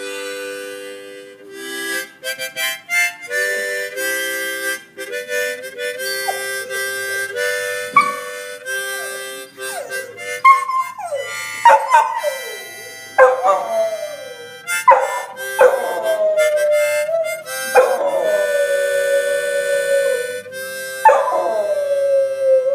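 A harmonica playing chords while a dog howls along. The howls begin about ten seconds in: about six long howls that start high and slide down to settle on a held note near the harmonica's pitch.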